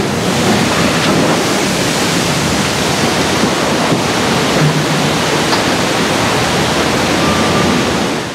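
Canal water surging and churning after a cargo ship's sideways launch from the slipway: a steady, loud rush of displaced water with a wave washing over the bank.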